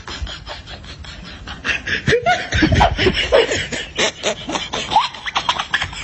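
A person laughing in quick short snickering bursts, starting about two seconds in.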